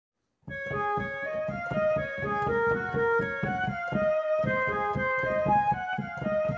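Background music: a keyboard melody of held notes over a steady beat, starting about half a second in.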